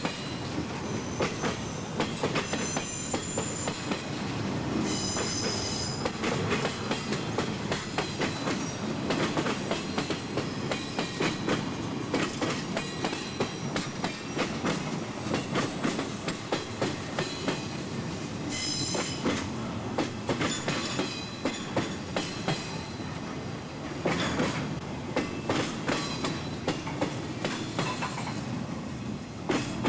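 Empty flatcars of a freight train rolling past close by, with steel wheels clicking over the rail joints in a steady rumbling run. The wheels squeal high-pitched twice, briefly: about five seconds in and again around nineteen seconds.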